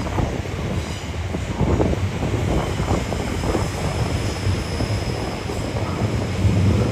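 Passenger train moving along the platform: a steady rumble of wheels on rail with irregular clattering over the track, and a faint thin wheel squeal in the middle.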